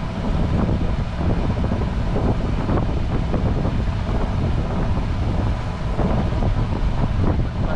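Steady wind buffeting the microphone on a boat at sea, a dense low rumble without breaks.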